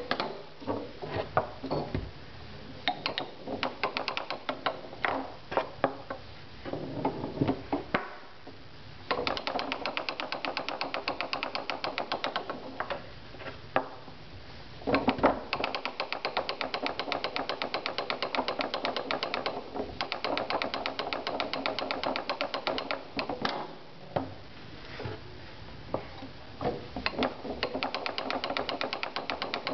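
Tornado foosball table in play: the hard ball clacking against the plastic men and the table walls as it is passed between figures, with sharp single knocks and several stretches of fast, continuous clicking.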